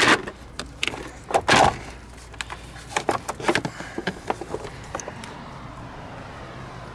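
Knocks and clicks of a car battery being fitted: the battery set down in its tray and the terminal clamp and hold-down bracket put on by hand. The knocks come thick in the first few seconds and thin out after about five seconds.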